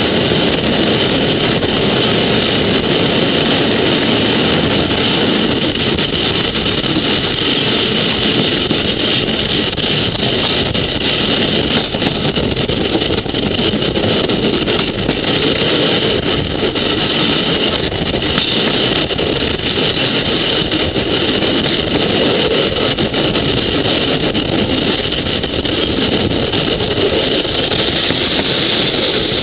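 Steady running noise of a moving vehicle: a continuous rumble and hiss that stays even throughout, with no distinct clicks or changes.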